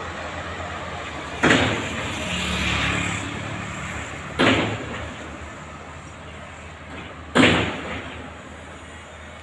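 Three sudden loud bangs, about three seconds apart, over a steady rumble of street traffic.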